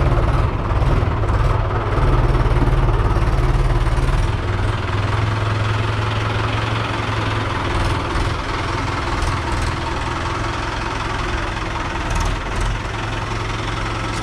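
Mahindra 575 DI tractor's four-cylinder diesel engine running at low speed while pulling a loaded trolley, a little louder for the first four seconds and then easing slightly and running steady.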